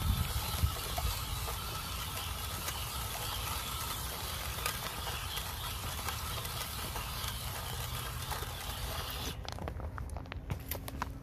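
Hobby Plus CR-18 RC crawler driving on a dirt trail: a steady motor and gear whine over a hiss, with scattered ticks and clicks. The whine and hiss cut off abruptly about nine seconds in, leaving only occasional clicks.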